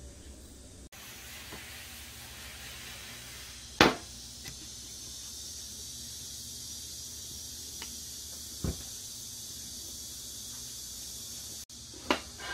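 A steady hiss, with a few sharp knocks: the loudest about four seconds in, a duller one near nine seconds, and another near the end.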